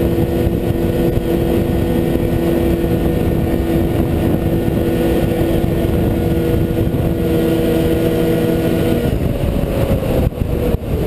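Snowmobile engine running hard at a steady pitch as the sled skims across open water. About nine seconds in, the pitch drops as the sled comes up onto the ice, and the sound dips briefly a couple of times near the end.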